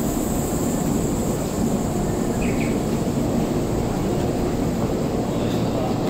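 Steady running noise of a Keisei 3500 series commuter train standing at the platform with its doors open, its onboard equipment humming evenly, with a faint brief chirp about two and a half seconds in.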